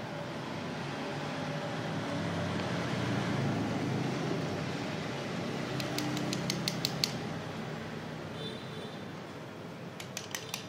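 Steady background noise that swells and fades over the first few seconds, then a quick run of light clicks, plastic and metal photocopier feed-unit parts knocking together as they are handled. A few more clicks come near the end.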